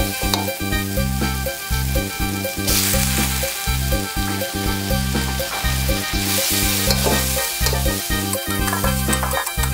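Metal spatula scraping and stirring chili-garlic paste in a hot steel wok, with oil sizzling. A louder burst of sizzling comes about three seconds in as shredded fingerroot goes into the wok, and another a little after six seconds. Background music with a bass line plays underneath.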